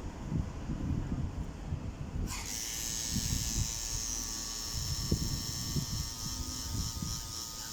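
Tattoo machine switching on about two seconds in and buzzing steadily. Irregular low knocks and rumble run underneath throughout.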